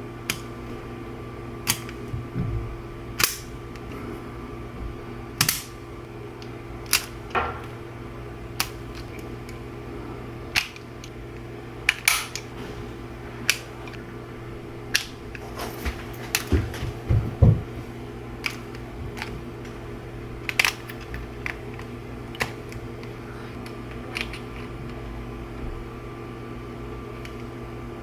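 A series of sharp single clicks at irregular spacing, roughly one a second and bunched more closely about two-thirds of the way through, over a steady low hum.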